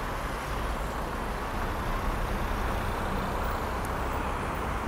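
Street traffic: cars driving past on a city avenue, a steady hum of engines and tyres.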